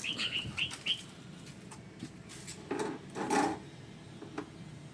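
A bird chirping rapidly through the first second, then two brief rubbing or handling noises about three seconds in, the second the louder, and a faint click shortly after.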